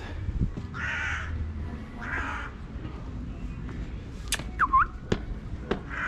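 A crow cawing twice, two harsh calls about a second apart. Later comes a short whistled chirp that dips and rises again, along with a few sharp clicks.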